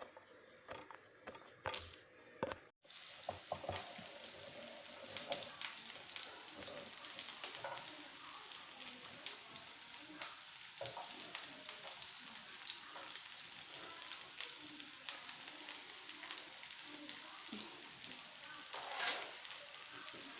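A few light knocks, then from about three seconds in, food frying in hot oil in a pan: a steady sizzle with small crackles, with occasional stirring.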